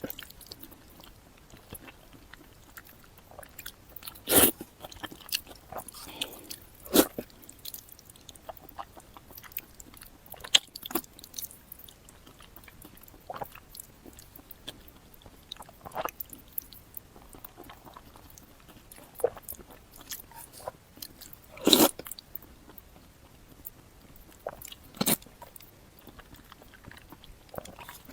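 A person eating sesame-paste glass noodles close to the microphone: chewing and mouth sounds with scattered short sharp clicks and smacks. A handful of louder ones come several seconds apart.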